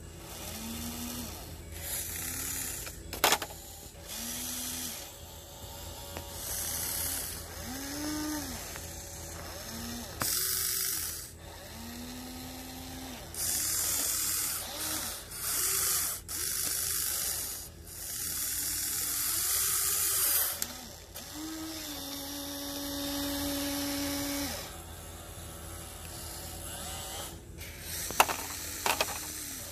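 The small electric gear motors of a remote-control excavator whine in repeated short bursts as the boom, arm and claw grab move, the pitch rising and falling with each movement. There is a sharp clack about three seconds in and a few more near the end, as rocks drop into the truck bed.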